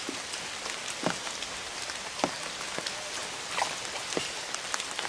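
Water splashing and plopping at a pond's surface as a hooked fish thrashes near the bank: a few sharp irregular splashes over a steady watery hiss.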